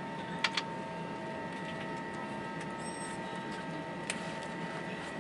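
Cabin noise of an Airbus A320 taxiing at idle: a steady rumble with a thin steady whine. Three sharp clicks cut through it, two close together about half a second in and one near the end.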